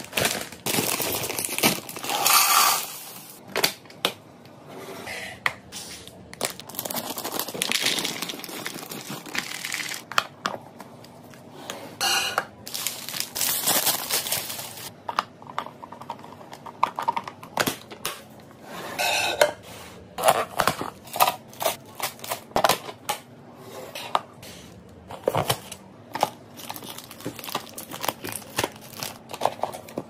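Close-up handling sounds while restocking snacks: a plastic snack bag crinkling, and packaged snacks and cookies clattering and knocking into hard clear plastic storage containers. Near the end a plastic lid is pressed onto a container. The sound comes as many short clicks and knocks with longer stretches of crinkling.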